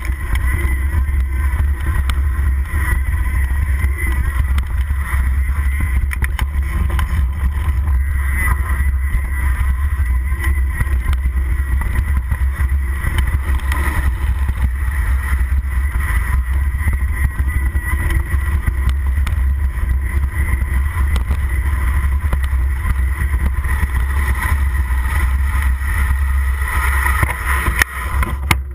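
Mountain bike descending a rough dirt singletrack: a loud, steady rumble of wind buffeting the microphone, mixed with the rattle of the bike and its tyres over the bumpy trail.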